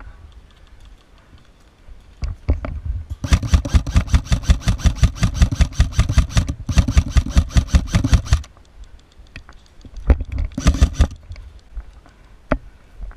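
Airsoft electric rifle firing on full auto: a long rapid burst of shots lasting about five seconds with a brief break partway through, then a short burst about ten seconds in, with a few single snaps around them.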